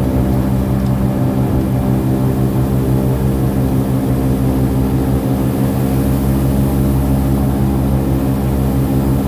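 Airboat's engine and air propeller running steadily at cruising speed: a loud, even, low drone that holds one pitch.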